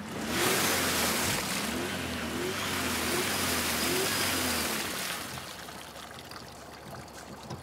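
SUV wheel spinning in deep mud, hissing and slinging wet mud, with the engine revving again and again as the driver tries to pull out of the rut: the car is stuck. The spinning and revving die away about five seconds in.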